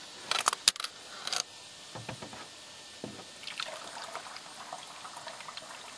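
Water poured from a plastic jug through a funnel into a plastic reservoir tank, trickling and gurgling faintly. A quick cluster of sharp clicks and knocks comes about half a second to a second and a half in.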